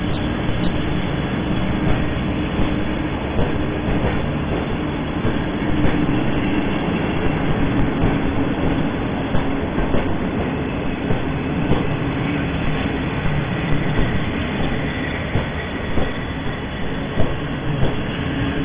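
A train hauled by a Polish EP09 electric locomotive rolling past on departure: steady rolling noise with wheels clicking over rail joints and a low steady hum underneath.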